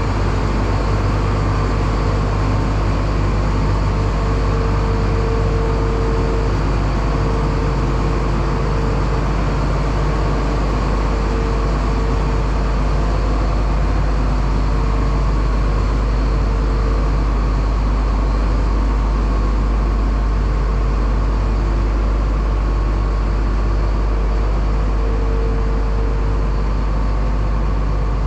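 Massey Ferguson 9690 combine's diesel engine running steadily, with a deep hum and a fainter tone that fades in and out.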